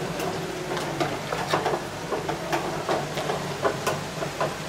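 Scattered light clicks and knocks, several a second at uneven spacing, over a steady low hum and a faint hiss.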